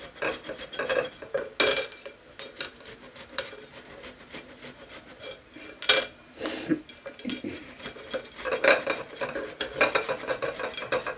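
Fresh ginger root being scraped with a metal utensil: quick, irregular rasping strokes, with louder knocks about two seconds in and about six seconds in.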